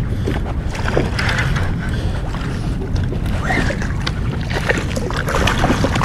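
Wind rumbling on the microphone over water lapping against a kayak's hull, with scattered small clicks and knocks throughout.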